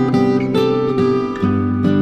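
Acoustic guitar playing an instrumental break in a song, with no singing: strummed chords with new notes struck about every half second.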